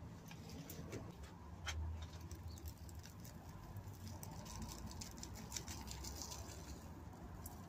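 Vermiculite granules sprinkled from a gloved hand, pattering onto compost in plastic seed trays as a faint, irregular scatter of small ticks.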